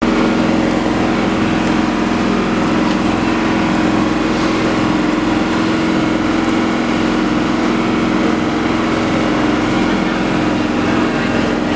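Steady drone of a ship's engines, a constant low hum over a wash of machinery and water noise.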